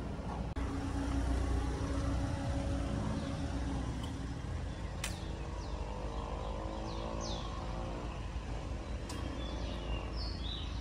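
Outdoor ambience: a low rumble with a vehicle's engine hum that rises and fades through the middle, a few short falling bird chirps, and a couple of sharp clicks.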